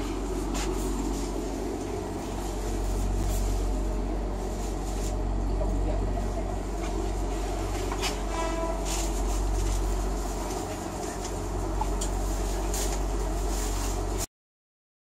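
Steady low hum inside a passenger train coach, with footsteps and small knocks as someone walks through it. There is a brief pitched, horn-like tone about eight and a half seconds in, and the sound cuts off abruptly near the end.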